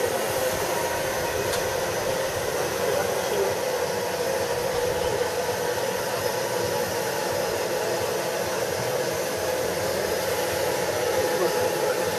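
Steady rushing hiss at steam tank locomotive 78 468 standing at a water crane, even and unbroken.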